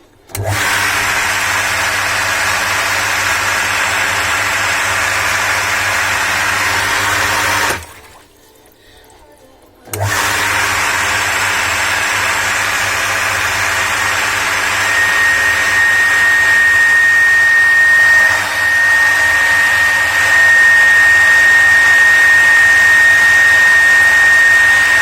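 Electric water pump of a pumping station starting and running steadily, stopping after about seven seconds, then starting again. A few seconds after the restart a steady high-pitched whistle comes in and holds. That whistle is the sign of a worn mechanical shaft seal that needs replacing.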